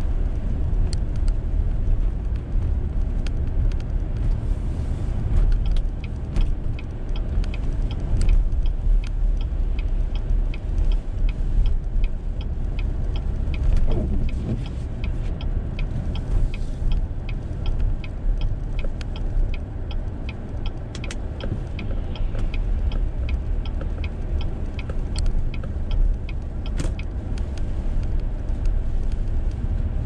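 Car cabin noise while driving on a snowy road: a steady low rumble of tyres and engine, with many light, irregular ticks throughout.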